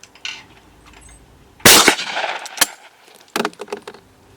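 A single over-and-under shotgun shot at a skeet clay about a second and a half in, echoing briefly. It is followed by a sharp click and then a short run of metallic clicks.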